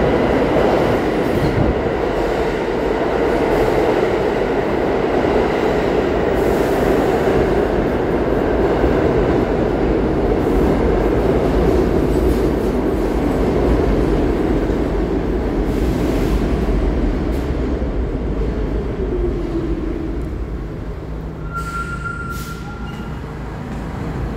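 R46 subway train pulling into an underground station: a steady loud rumble of steel wheels on rail that eases off as the train slows, with a falling whine as it brakes. Near the end, as it comes to a stop, there is a brief high tone and a couple of sharp clicks.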